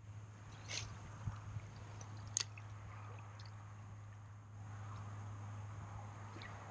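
Quiet on a kayak drifting on calm water: faint water lapping and gurgling at the plastic hull, with a few light clicks, over a low steady hum.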